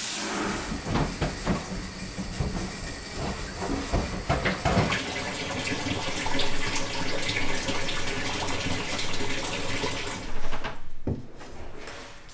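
Running water, with scattered knocks and clatter in the first half; it cuts off sharply near the end.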